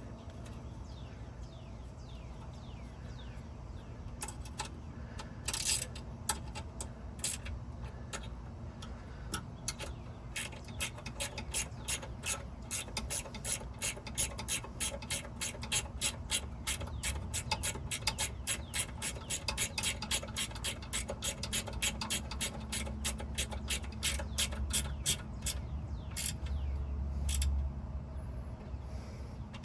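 Hand ratchet wrench clicking as a nut is run down and tightened, likely a castle nut that takes a cotter pin: a few scattered clicks at first, then a steady run of about three clicks a second from about a third of the way in, stopping shortly before the end.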